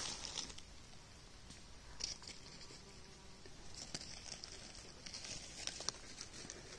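Faint rustling and crackling of dry fallen leaves underfoot on the forest floor, a few sharper crackles a couple of seconds apart.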